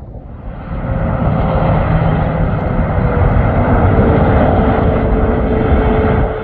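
Jet airliner passing close on its landing approach: engine roar swells about half a second in and holds loud, with a faint whine that slowly falls in pitch, easing off near the end.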